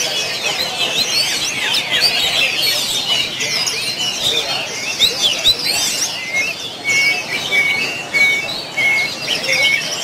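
Many caged songbirds singing and chirping together in a dense, overlapping chorus. From about six and a half seconds in, one bird repeats a short level whistle about every half second over the rest.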